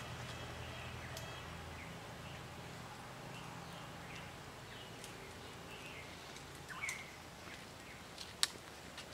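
Quiet rural outdoor ambience: a faint low hum fades away after about four seconds, with scattered faint bird chirps and a few sharp clicks, one louder click near the end.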